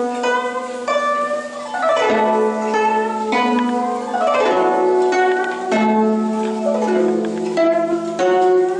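Guzheng played solo: plucked notes that ring and decay, with quick cascading runs of notes about two seconds in and again halfway through.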